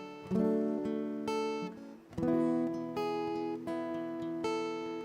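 Acoustic guitar slowly strumming chords, about one chord a second, each left to ring: the introduction to a worship song.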